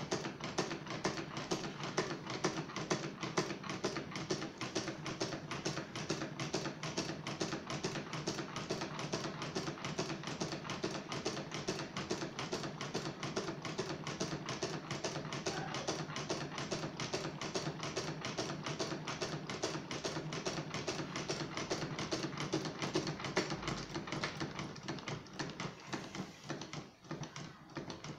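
Homemade twin solenoid engine running: a fast, even clacking as the solenoids fire and the pistons and linkage knock, over a steady hum. Near the end the clacking grows quieter and sparser as the engine slows.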